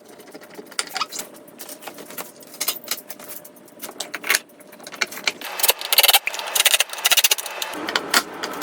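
Clicking and rattling of small metal cabinet hardware and tools being handled, growing louder and busier in the second half.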